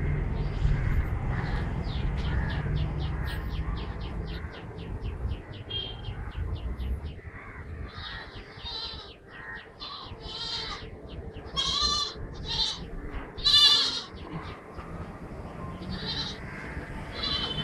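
A low rumble with a fast, even ticking, about four ticks a second, fades out after several seconds. Then come a series of loud animal calls; the loudest two are close together past the middle.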